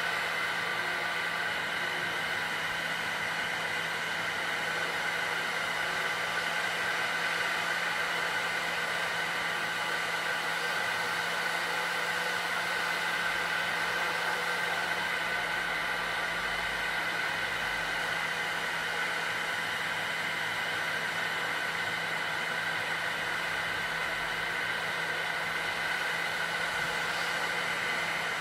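Heat gun running steadily, blowing hot air onto the GPU chip of an AMD Radeon R9 270 graphics card to reflow the solder balls beneath it. It is an even rushing hiss with a low hum under it.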